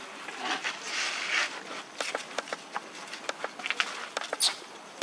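Dry leaf litter rustling and then crackling in many short, sharp clicks as monkeys move over the ground, with one louder, higher crackle near the end.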